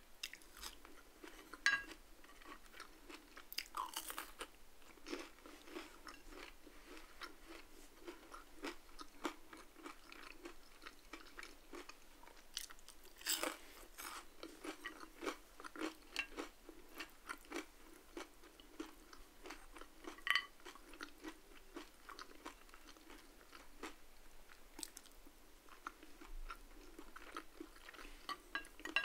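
Close-miked eating: a person chewing and biting crunchy food, a steady run of small crisp crunches with a few louder bites standing out, the loudest about halfway through.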